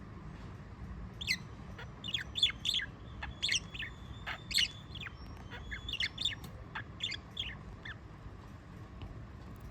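Budgerigar chattering in a run of short, quick chirps from about a second in until near the end, over a low steady hum.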